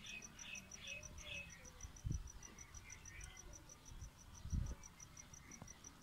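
Faint, even, high-pitched insect chirping, about eight pulses a second, with a few short chirps in the first second and a half. Two dull thumps, about two and four and a half seconds in, are the loudest sounds.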